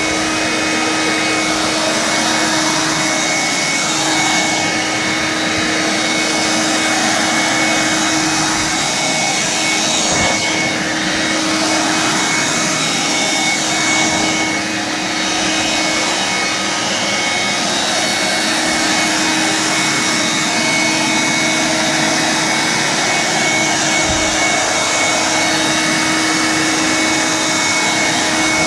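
1985 Hoover Brush Vac hand vacuum with its brush tool fitted, running steadily with a constant motor whine. There are a couple of faint knocks, about ten seconds in and near the end.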